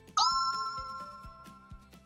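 A bright electronic chime sound effect rings once just after the start, its tones swooping up into place and then fading over about a second and a half. Faint background music with a steady light beat runs underneath.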